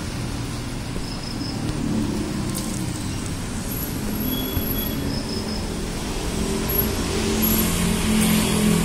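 Steady low rumble of road traffic and running vehicle engines, growing somewhat louder near the end.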